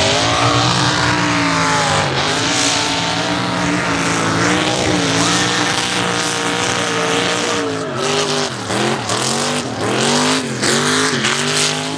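Mud racing pickup's diesel engine at wide-open throttle: the revs climb on the launch and hold high, then from about eight seconds in they drop and climb again four times as the truck bounds over the jumps.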